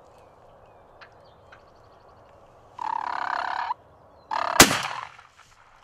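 An Eastern wild turkey gobbles loudly for about a second, about three seconds in. Just over a second later a muzzleloading shotgun fires once with a sharp blast, the loudest sound.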